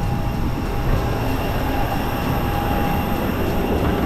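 Steady cabin noise of an airliner during boarding: a continuous low rumble and air hiss with a faint steady whine running through it.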